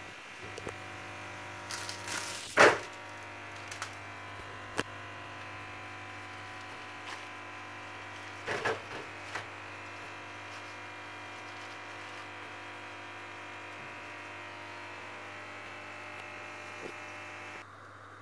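Steady electric hum from an appliance that cuts off near the end. Over it come a few short rustles and knocks as a roll of pastry dough is unwrapped and laid out on a metal baking tray. The loudest comes about two and a half seconds in, and a cluster follows around eight and a half seconds.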